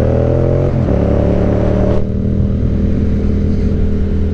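Yamaha MT-07 parallel-twin motorcycle engine accelerating under way. The engine note climbs, drops with an upshift about a second in, climbs again, then holds steady from about halfway.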